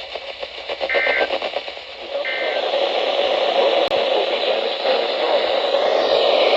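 Two short bursts of Emergency Alert System end-of-message data tones from a weather radio broadcast, about a second and a half apart, marking the close of the warning message. Then a steady, louder hiss of radio static.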